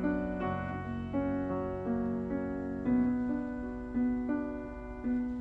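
Slow background piano music, single notes struck one after another about every half second and left to ring.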